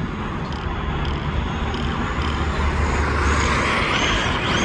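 Custom RC car driving on sand, its motor whining and its tyres hissing through the sand, louder and hissier from about three seconds in as it comes close, with high whines that rise and fall.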